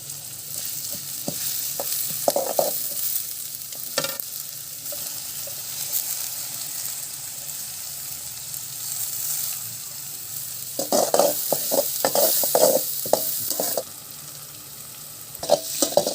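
Onions and ginger-garlic paste sizzling in hot peanut oil, with a spoon stirring and scraping against the pan. The scraping comes in short strokes, in a busier run from about 11 to 14 seconds in.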